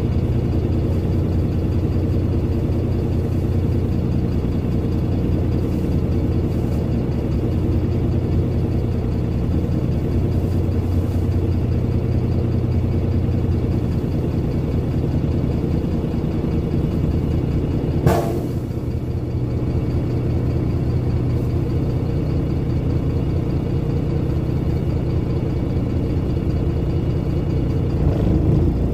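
Cummins ISBe 270B six-cylinder diesel of a NefAZ 5299 city bus idling steadily while the bus stands at a stop, heard from inside the passenger cabin. A single sharp knock comes about two-thirds of the way through, and the sound rises briefly near the end.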